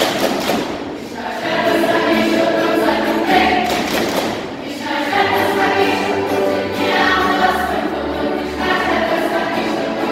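Girls' choir singing together in phrases, with brief dips between phrases about a second in and again midway, and a low bass line underneath at times.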